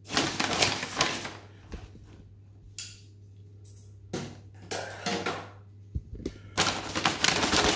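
Brown kraft packing paper rustling and crinkling as it is handled and pushed aside, in irregular bursts with short pauses between, over a faint steady low hum.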